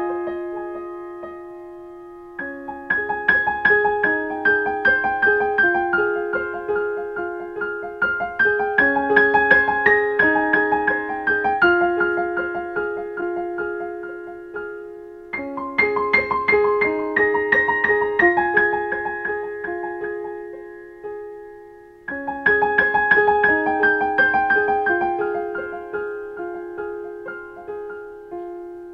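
Solo digital piano playing a slow instrumental piece: repeated upper notes over held lower notes, in four phrases that each start strong and fade away over several seconds.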